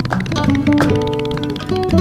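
Background music: a plucked string instrument playing a run of separate notes.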